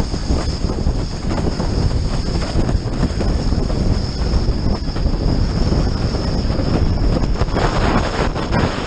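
Windsurf board planing fast over choppy water: a steady rumble with rapid knocks as the board chatters over the chop, and wind buffeting the microphone. A brighter hiss of spray comes in near the end.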